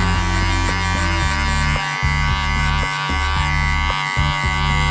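Electric hair clippers buzzing steadily as they trim, under background music with a bass line that changes note about once a second.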